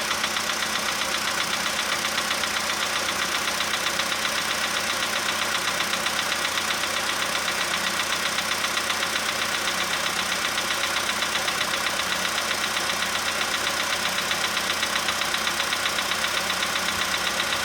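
Volkswagen Polo Sedan engine idling steadily from a cold start with a fast, even knock, the engine still cold and warming up.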